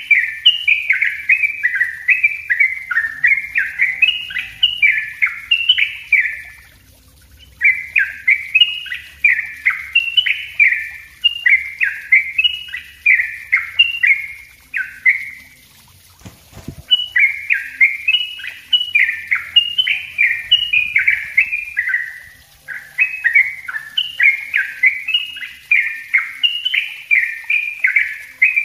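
A caged yellow-vented bulbul sings its rapid, dense chattering song: long runs of quick bubbly notes, broken by short pauses about a quarter of the way in, just past halfway, and about three-quarters through. During the middle pause there is a soft low thump.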